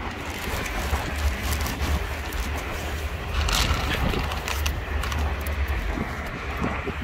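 Dry cat kibble rattling onto a plastic plate as it is dropped by hand, about halfway through, over a steady low outdoor rumble.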